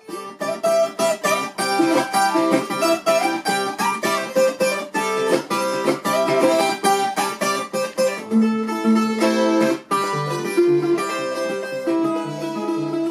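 Acoustic guitar music with fast plucked notes; lower bass notes come in about eight seconds in.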